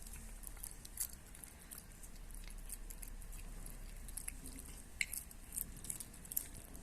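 Cat chewing and smacking on fish, a faint run of small, irregular clicks with a few sharper ones about a second in and again near the end.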